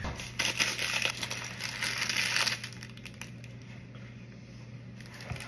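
Plastic wrapper of a packaged peanut butter and jelly sandwich crinkling and tearing as it is pulled open, for about two and a half seconds, then dying down.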